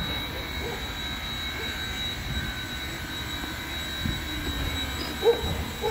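A standing 2-6-6-2 steam locomotive at rest, giving a steady hiss with a thin, constant whine over a low rumble. A couple of small knocks come about four seconds in.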